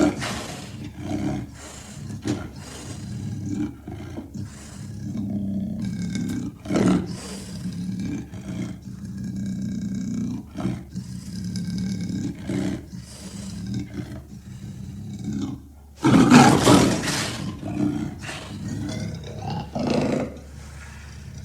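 Creature roar sound effects: a string of short, broken-up roars, with the loudest roar about sixteen seconds in.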